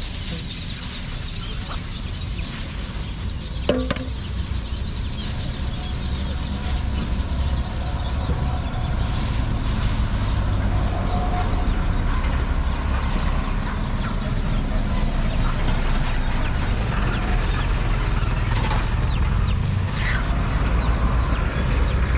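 Chickens clucking over a steady low rumble that grows louder partway through, with a single sharp click about four seconds in.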